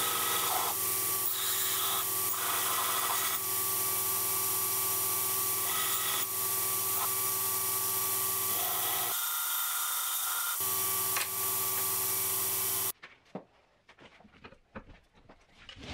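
Belt grinder running steadily, with a steel hatchet head pressed against the belt in several short grinding passes during the first few seconds. The grinder's sound cuts off abruptly about three seconds before the end, leaving quiet broken by a few light knocks.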